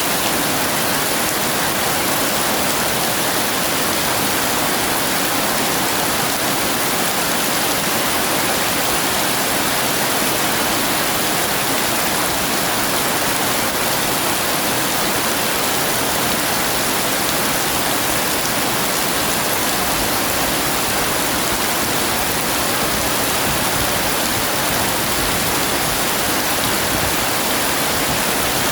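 Heavy rain pouring steadily, an even hiss with no breaks and no thunder.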